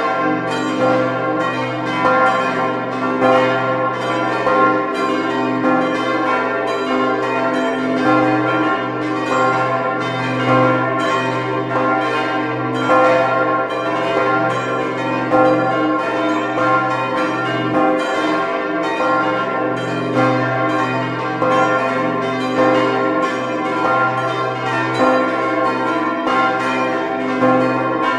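Church bells of the Visp bell tower ringing together in a full peal: several bells striking over one another in a steady, overlapping rhythm, their tones ringing on continuously.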